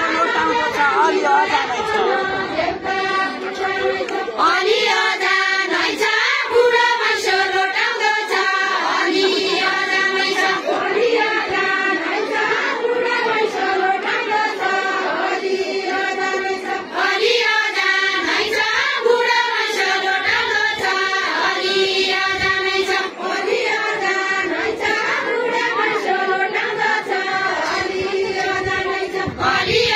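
A Deuda folk song of far-western Nepal sung in chorus by a large group, mostly women's voices, in steady phrases with short breaks between them.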